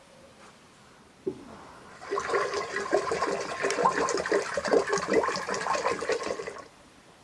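Water running and splashing for about four and a half seconds, then stopping suddenly, after a single knock.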